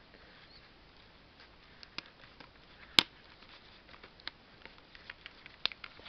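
Scattered light taps and clicks from a box of Crayola markers and paper being handled on a tabletop. One sharp click about three seconds in is the loudest; the others are softer and irregular.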